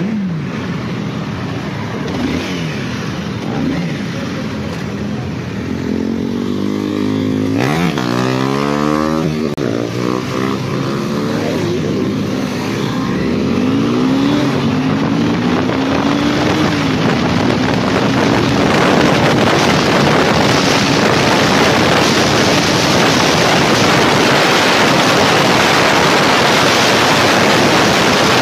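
Honda CBR250R single-cylinder engine pulling away and accelerating through the gears: several rising sweeps in pitch, each broken off by an upshift, settling to a steady pitch at cruising speed. Wind noise on the microphone grows loud as speed builds. Engines rev nearby in the first few seconds.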